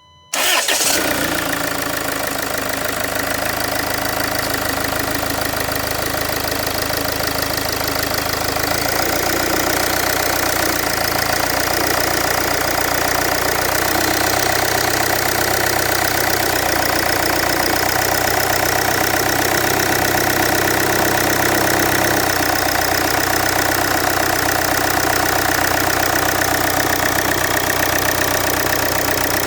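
Land Rover Freelander 2 engine starting about half a second in, then idling steadily with a loud engine noise that is the owner's complaint.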